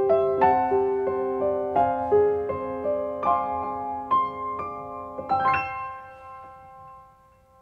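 Slow, gentle solo piano music, single notes and chords struck one after another, ending on a chord a little over five seconds in that rings on and fades away.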